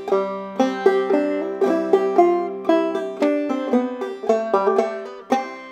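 Five-string banjo in double C tuning played clawhammer style: an evenly paced run of picked melody notes, brush strums and thumbed drone notes, about three notes a second.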